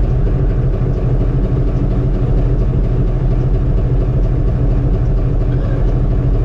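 Brockway semi truck's engine idling steadily, heard from inside the cab.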